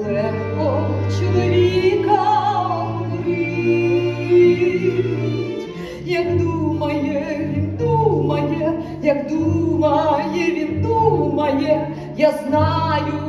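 Stage show music with singing over held low bass notes.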